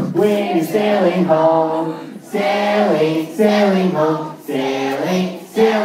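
A crowd of campers singing a camp song together in short sung phrases, about four of them with brief breaks in between.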